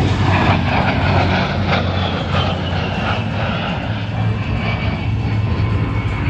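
Airplane engine noise from an aircraft flying at an air show, a loud steady rush with a low hum and a faint high whine that slowly falls in pitch.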